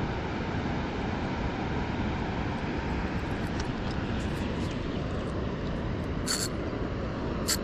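Steady low rumbling outdoor background noise, with two short, sharp high clicks near the end.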